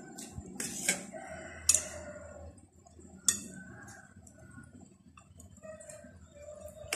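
A rooster crowing in the background, with a few sharp clinks of a metal spoon against a plate.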